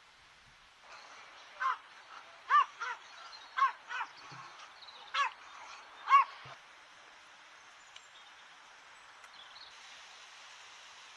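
About seven short, sharp animal calls in quick succession, each rising and falling in pitch. The last of them is the loudest.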